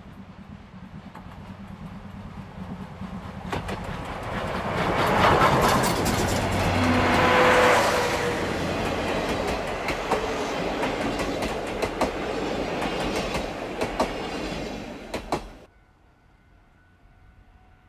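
Steam locomotive working hard as it approaches and passes, then its passenger coaches rolling by with their wheels clicking rhythmically over the rail joints. The sound builds, peaks as the engine goes by, and cuts off suddenly near the end, leaving only faint background.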